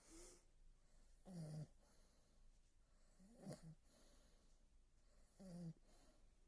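An English bull terrier snoring in its sleep: a short, low, pitched snore on each breath, about every two seconds.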